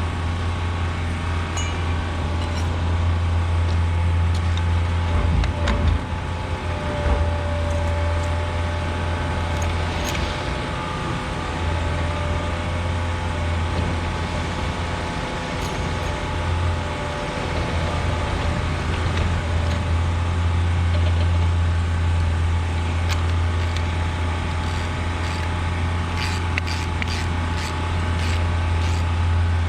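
Electric concrete core drill running steadily with a constant low motor hum as its diamond core bit cuts into a concrete wall, with a few brief knocks about six seconds in and light ticking near the end.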